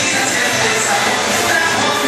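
Music with a singing voice, played loud and steady.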